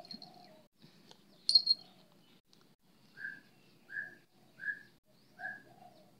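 A bird calling: four short, evenly spaced notes, about one every three-quarters of a second, in the second half. About one and a half seconds in there is a brief, sharp high chirp, which is the loudest sound.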